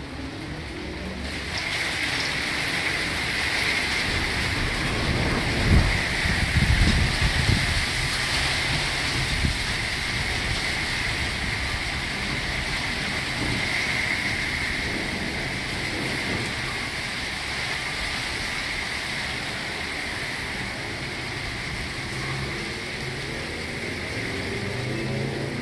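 Graupel and rain hissing steadily on the ground and surfaces, coming in suddenly about a second and a half in. About six seconds in comes a clap of thunder that rumbles for some three seconds: thundersnow, thunder inside a falling graupel and snow shower.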